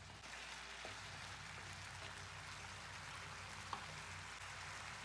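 Faint sizzling and bubbling of chicken pieces cooking in masala gravy in a non-stick kadai, with a couple of small clicks.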